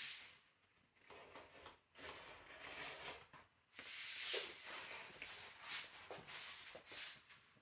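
Rotary cutter rolling through fabric on a cutting mat, in a series of short, faint strokes with brief pauses between them.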